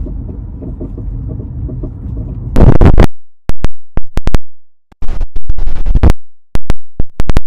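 Low rumble inside a car, then, about two and a half seconds in, strong wind blasts the microphone as the car door opens. The wind noise is loud and distorted and cuts in and out in crackling bits.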